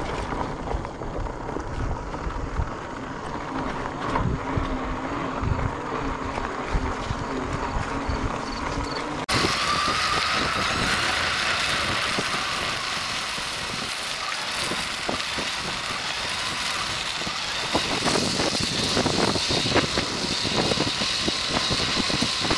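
E-bike riding over gravel and dirt trail: a steady rush of tyre noise with scattered small knocks and rattles, and wind on the microphone. The sound changes abruptly about nine seconds in to a brighter, hissier rush.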